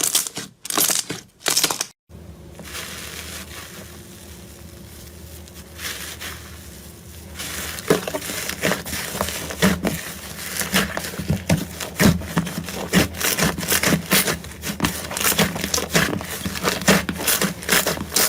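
Slime being squeezed and worked by hand, making quick, irregular crackles and pops. After a brief drop-out about two seconds in, a steady low hum runs underneath.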